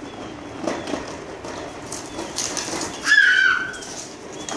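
A toddler's high-pitched squeal, held for about half a second about three seconds in, over a faint background of a small tricycle moving on a concrete floor.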